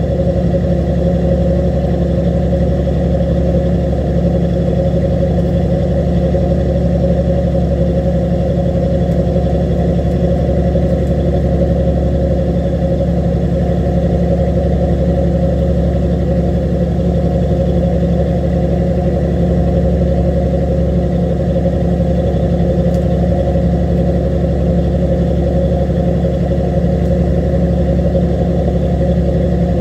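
A fishing boat's engine running steadily: an even, unchanging drone with no change in speed.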